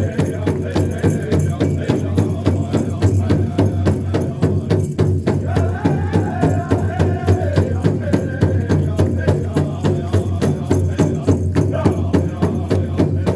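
Hoop dance music: a drum beaten in a fast, steady rhythm of about two to three beats a second, with a rattling percussion edge and a voice singing over it, a held line about halfway through.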